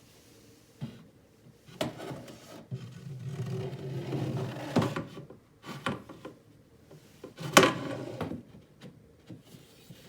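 Wooden shelf panels being slid into a TV stand cabinet and set in place: a stretch of scraping as a panel slides, with several sharp wooden knocks, the loudest about three-quarters of the way in.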